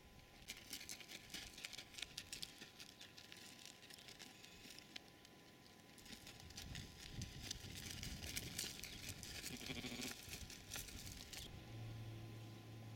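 Irregular crackling, rustling and clicking right on the microphone as sheep crowd against and nose at the camera. It stops about eleven and a half seconds in.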